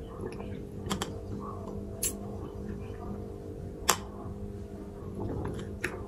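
Faint sipping of a smoothie through a straw from a glass, with a few scattered sharp clicks over a steady low hum.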